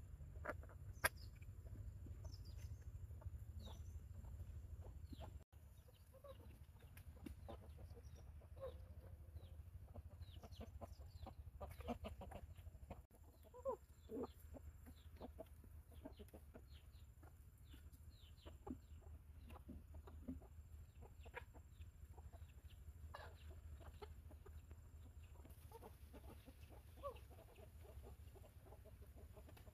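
Chickens clucking faintly in short, scattered calls, with thin high peeps mixed in, over a low steady rumble.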